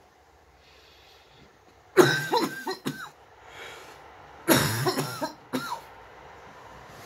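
A man coughing in two fits, each a quick run of several harsh coughs, the first starting about two seconds in and the second about four and a half seconds in. It is the lingering cough of COVID-19, still there on the eighth day of illness.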